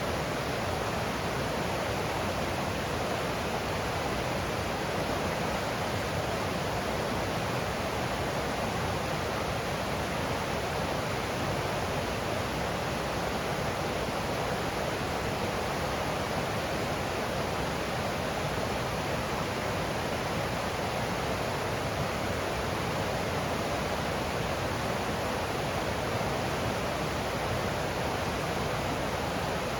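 Creek water rushing steadily over rocks, a constant even roar with no let-up.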